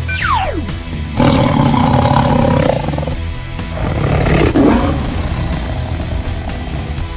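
Background music with added sound effects: a falling whistle-like glide at the start, then a loud monster roar about a second in that lasts about a second and a half, and a shorter roar about four seconds in.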